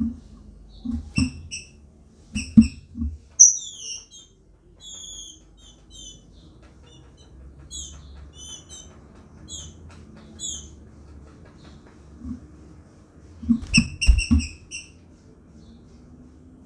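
Female green-winged saltator (trinca-ferro) giving short, high chirping call notes, the calls of a female soliciting a male, with a quick cluster of them about 14 seconds in. Sharp knocks and thumps from the bird hopping and flapping on the wooden cage perch come near the start and again with the late cluster.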